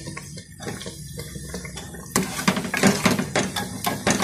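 Mustard-oil tempering sizzling in a metal frying pan. About two seconds in, a ladle starts stirring and scraping against the pan and the sizzle gets louder.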